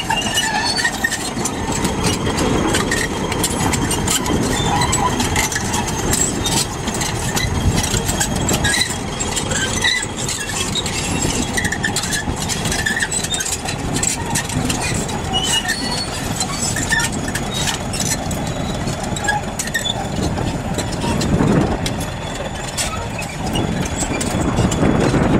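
Crawler bulldozer working on crushed stone: its diesel engine runs steadily under many small clicks and knocks from the steel tracks and the stone being pushed and driven over.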